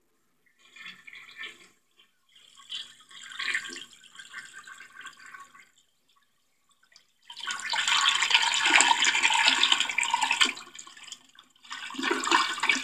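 Toy toilet's flush sound effect from its small speaker: a rush of water noise, first quieter for about five seconds, then after a short gap much louder for several seconds, with a brief break near the end.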